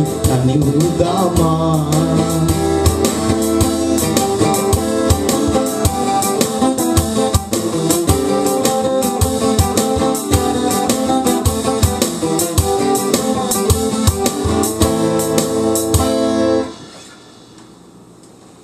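Instrumental close of a song: a twelve-string acoustic guitar strummed over an organ-like keyboard backing with a steady beat. The music stops suddenly near the end, leaving faint room tone.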